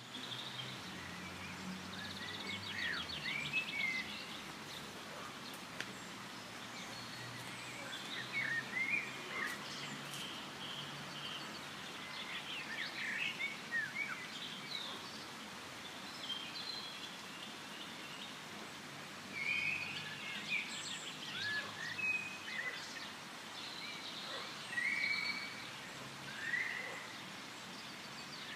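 Forest ambience: several birds chirping and calling in short, scattered phrases, including a rapid trill about three seconds in, over a steady background hiss.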